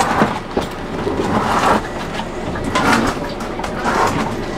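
Inside a city bus: the engine running and road noise, with short rattles and clicks from the cabin fittings.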